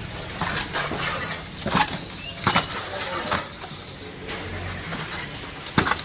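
Handling noise from a handheld camera brushing against a tarp curtain: several sharp knocks and rustles over a steady low background hum.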